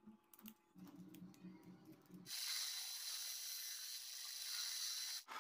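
A wrench ratchets on a model tractor's wheel nut, clicking about four times a second. About two seconds in, a louder, steady high hiss follows as a drill press bit cuts through steel plate.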